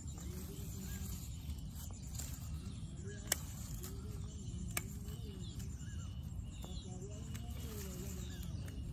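Two sharp snips of hand pruning secateurs cutting side shoots off a young shisham sapling, about a second and a half apart, over a steady low background with a few faint bird chirps.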